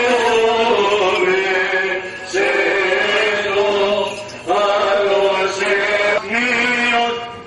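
Byzantine chant of Orthodox Vespers: chanters singing long, slowly gliding held notes in phrases broken by short pauses, over a steady low held note.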